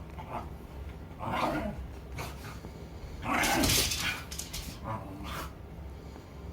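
Shiba Inus play-fighting, letting out a few short barks. The loudest comes about halfway through, with smaller ones before and after.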